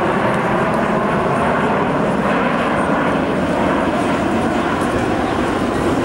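Jet engines of a Blue Angels F/A-18 Hornet formation flying past: a steady, loud rushing jet noise with faint tones running through it.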